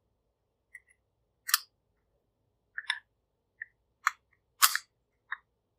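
About eight sharp, irregularly spaced clicks and knocks, the loudest about a second and a half in and near five seconds in.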